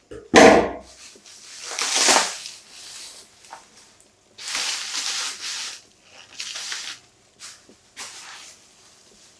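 Unboxing handling noise: a sharp knock about half a second in, then several separate bursts of rustling and scraping as packaging and a phone case are handled.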